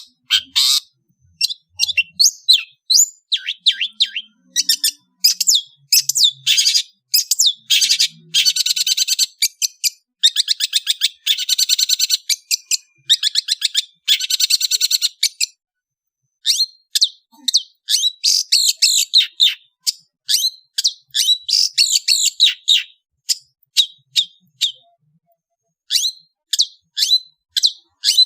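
Long-tailed shrike (cendet) singing in fast runs of sharp chirps broken by rapid trills, pausing briefly about halfway through.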